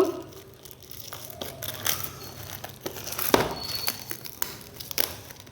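Packaging being crinkled and rustled by hand as a gift parcel is opened, with irregular crackles and one sharper snap about three and a half seconds in.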